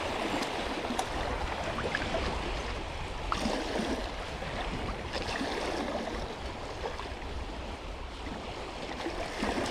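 Small sea waves washing and breaking against the shoreline, a steady rush of water.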